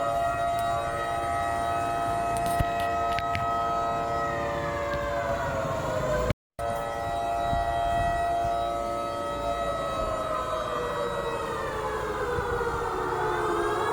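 Outdoor warning siren sounding the 10 pm lockdown curfew signal: a loud, steady chord of several tones that slides down in pitch about halfway, holds, slides down again and starts climbing near the end. The sound cuts out completely for a split second about halfway through.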